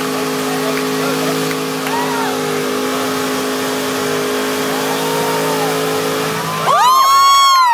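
Pontiac Trans Am's engine held at high revs through a burnout, a steady drone, which stops near the end as a loud, high whoop from a spectator rises, holds and falls away.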